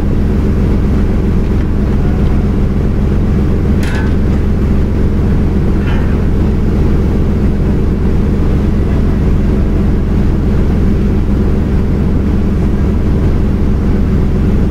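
Steady, unchanging low drone of a fishing vessel's engine running, with two brief high-pitched calls about four and six seconds in.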